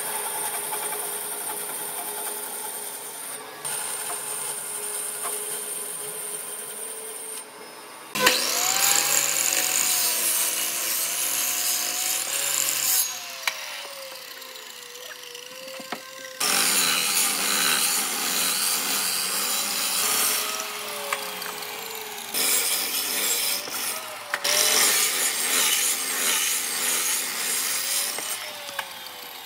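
A bandsaw cutting through a thick wooden block, then, about eight seconds in, a miter saw cutting hardwood in several loud passes, its motor pitch sagging and recovering under load.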